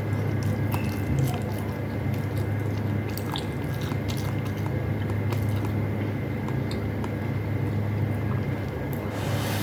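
A person chewing a mouthful of beefloaf and rice close to the microphone, with scattered small wet mouth clicks over a steady low hum.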